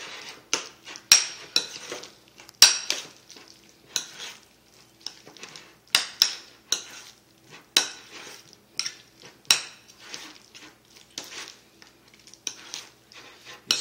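Metal spoon stirring guacamole in a ceramic bowl, knocking and scraping against the bowl's sides in irregular clinks, roughly one or two a second.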